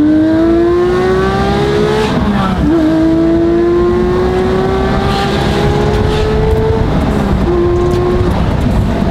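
Straight-piped Porsche 992 GT3 flat-six with IPE headers and exhaust, pulling hard through the gears of its manual gearbox, heard from the cabin. The engine note climbs for about two seconds, drops at an upshift, climbs again for about four seconds, and drops once more at a second shift near the end.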